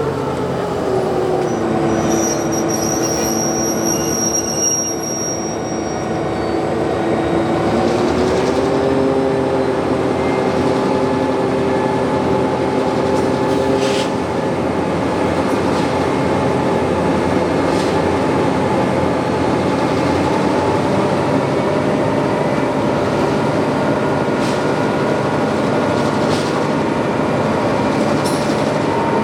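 Grain train running past: a continuous rail rumble with a steady whine whose pitch drops over the first couple of seconds and then holds level.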